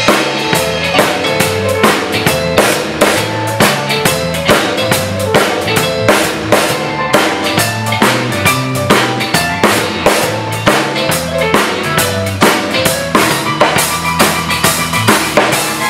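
Drum kit played with sticks, with snare, bass drum and cymbals in a steady groove over a backing track of bass and chords.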